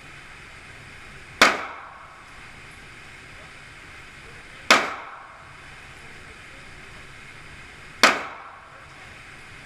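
Three single shots from a 9mm Glock pistol, slow and evenly spaced about three seconds apart, each a sharp crack with a short ringing decay.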